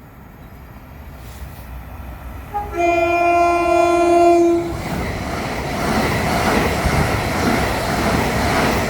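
Train horn sounding for about two seconds, a brief higher note then a longer lower one, followed by the loud rushing noise of a train passing by on the main line.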